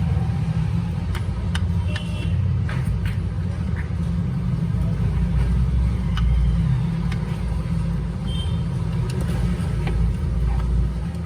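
Steady low rumble of background noise, with scattered light clicks and a few brief high beeps.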